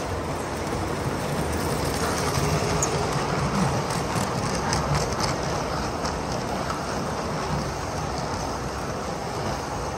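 Gauge 1 model freight train of covered goods wagons rolling past close by: a steady rumble of metal wheels on the track with a few light clicks, a little louder around the middle.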